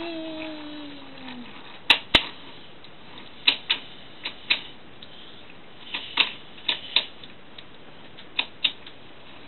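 A falling pitched tone fades out in the first second and a half. Then come sharp clicks in close pairs, about six pairs, one pair every second or so.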